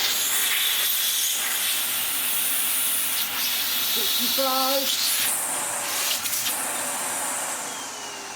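Sebo Felix upright vacuum cleaner's suction motor running steadily with a loud rushing hiss of air while its inlet is sealed on a water lift gauge, pulling a reading of about 65.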